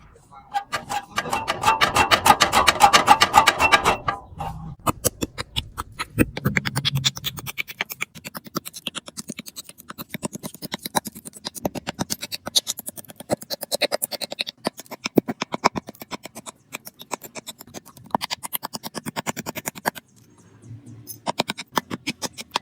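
Rapid, repeated scraping strokes of a hand tool on the metal of a burnt electric motor, with a louder rasping stretch in the first few seconds.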